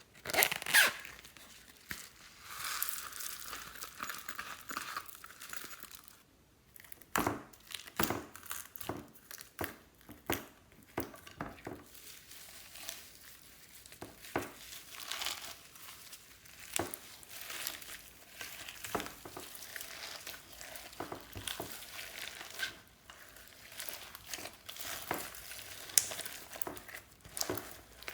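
Glossy slime being worked by hand: a steady run of sticky clicks, pops and crackles as it is squished and pulled, with a denser crackling hiss a few seconds in.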